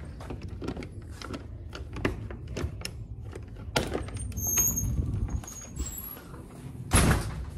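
Low steady rumble, which he takes for an airplane overhead, though he is not sure, under rustling and clicks from the phone being handled, with a loud thump near the end.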